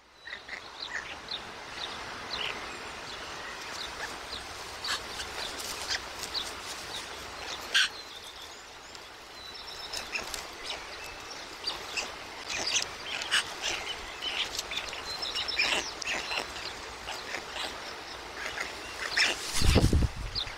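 Many short bird chirps and calls scattered over a steady outdoor background hiss around a white stork nest. A brief low rumble near the end is the loudest sound.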